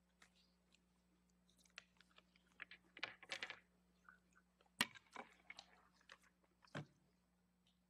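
Quiet handling noise at a wooden lectern: scattered soft clicks, taps and rustling as a phone is handled near the microphone, with one sharp knock about five seconds in, the loudest sound, and another firmer tap shortly before the end.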